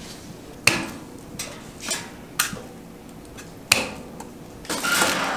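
Sharp clicks and light knocks of a propane fireplace's metal parts being handled during assembly, a handful spaced a second or so apart, then a brief rustling near the end.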